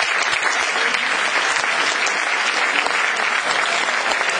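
Audience applauding, a dense and steady round of clapping.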